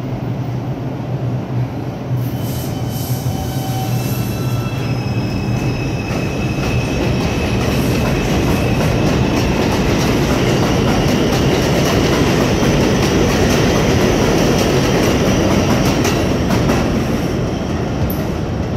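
R142 subway train pulling out of an elevated station, its electric motors giving a whine that slowly rises in pitch as it accelerates, over the rumble and clack of the wheels on the track. The noise builds as the cars pass and eases near the end as the train moves away.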